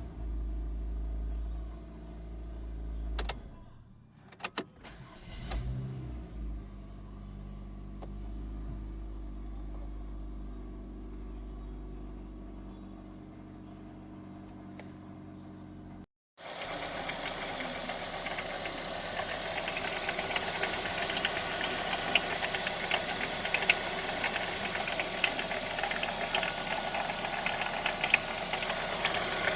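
Mazda Demio DE3FS engine running at idle after a brief rev. After a cut it is heard closer and louder, with a fast, irregular ticking rattle: the abnormal noise from a failing alternator clutch pulley.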